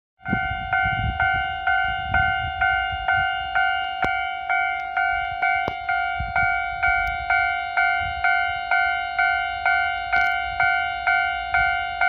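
Japanese railway level-crossing alarm: an electronic crossing bell striking steadily about twice a second, each ding fading before the next, warning of an approaching train. A low rumble runs underneath.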